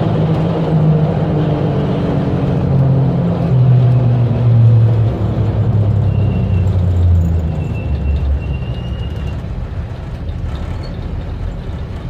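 1975 Ford Bronco's engine heard from inside the cab while driving, its note falling step by step over the first eight seconds as the truck eases off, then running quieter under road noise. A faint high whine comes in briefly near the middle.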